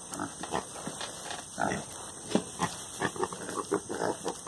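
Pig grunting: a string of short, irregular grunts, about three a second.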